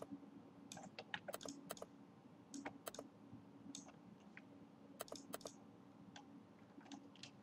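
Faint, irregular clicks from a computer keyboard and mouse, over a low steady hum.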